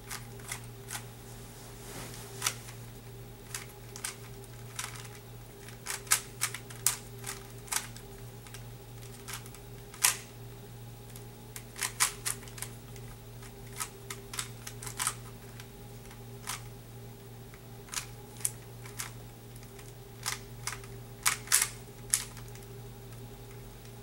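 Rubik's Cube being solved by hand: the plastic layers are turned with irregular sharp clicks, often in quick clusters of two or three, over a steady low hum.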